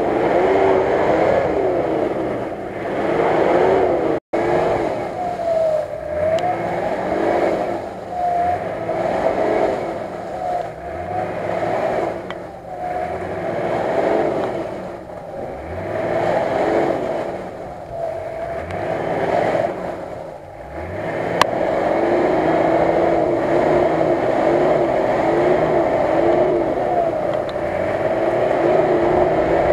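Off-road 4x4 SUV's engine revving up and falling back over and over, roughly every two seconds, as it works the vehicle through deep mud.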